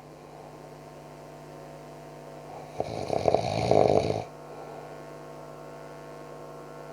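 A man snoring loudly in his sleep: one long snore about three seconds in, between quieter breathing stretches, over a steady low hum.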